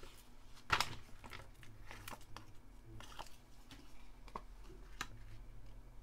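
Paper cards being handled and laid down on a table: light rustles, slides and small taps of card, the sharpest just under a second in.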